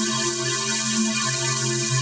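Electronically processed audio run through flanger, pulse and chorus effects: a steady, buzzy chord whose lower notes throb in and out, under a constant static-like hiss.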